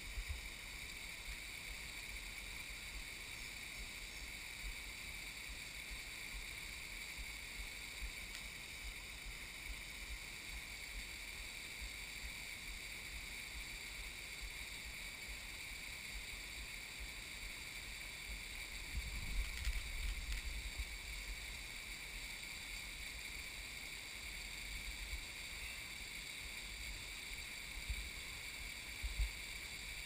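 Steady hiss of the small waterfall running down the rock slab, with short low rumbles on the microphone about two-thirds through and again near the end.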